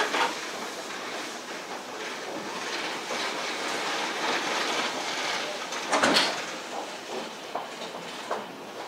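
Running sound inside a Chiba Urban Monorail 1000 series car, a suspended monorail on rubber tyres: a steady rushing noise, with one brief loud knock about six seconds in and a few fainter clicks after it.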